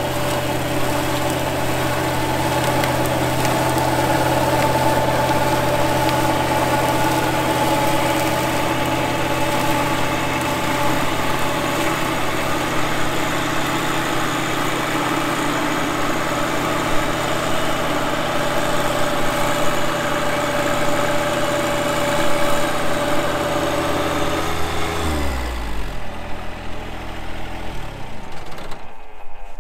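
John Deere 1025R compact tractor's three-cylinder diesel running steadily under load, driving a PTO-powered Nova Tractor BCRL135 offset flail mower through tall grass. Near the end the engine slows and its pitch falls as the tractor and mower wind down.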